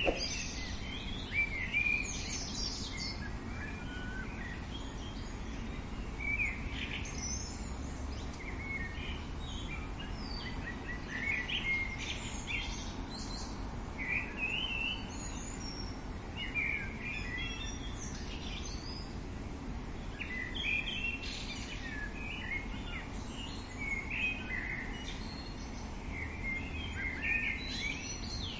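Birdsong: short phrases of high chirps and trills repeating every couple of seconds over a steady low background noise.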